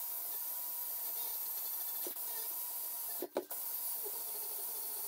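Right-angle air grinder with a small abrasive disc running at speed against a steel exhaust tip, a steady hiss with a faint whine, stripping off the worn chrome. It cuts out for a moment a little over three seconds in, then runs on.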